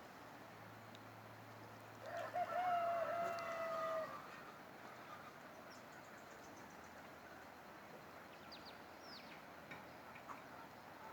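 A bird's long, drawn-out call, held for about two seconds starting about two seconds in, then a few faint, short, high chirps near the end over a steady hiss.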